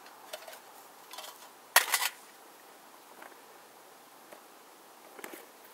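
A few light clicks and knocks from flint-and-steel fire-starting gear being handled, with one sharper clack about two seconds in.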